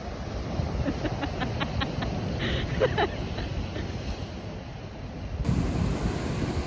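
Ocean surf washing onto a sandy beach, with wind buffeting the microphone. About a second in comes a quick run of faint ticks, followed by a couple of short sharp calls around the three-second mark.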